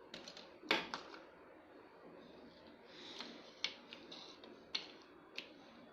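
Plastic toy food pieces being handled and set down: a few sharp clicks and light knocks, the loudest about a second in, with faint rustling between them.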